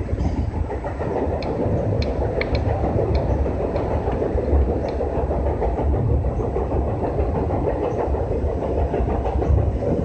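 JR West 201 series electric commuter train running at speed, heard from inside the lead car: a steady deep rumble of wheels and running gear with faint scattered ticks, as it crosses a steel truss bridge.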